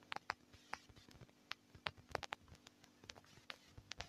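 Faint, irregular clicks and taps, several a second, from fingertips typing on a smartphone's on-screen keyboard, over a faint steady low hum.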